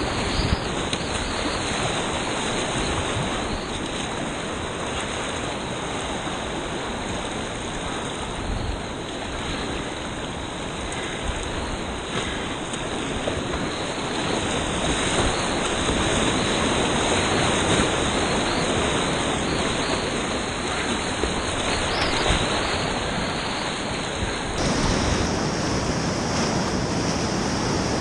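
Whitewater rapids of an artificial slalom course rushing and churning close around a kayak, a continuous roar of breaking water that grows somewhat louder in the second half.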